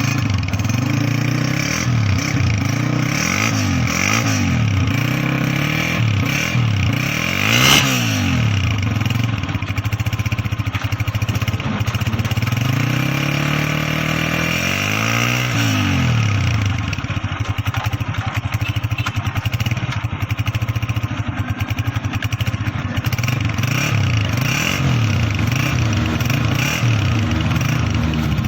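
Honda CG 125 motorcycle's single-cylinder engine running and being revved up and down again and again. There are sharper blips about four, eight and fifteen seconds in.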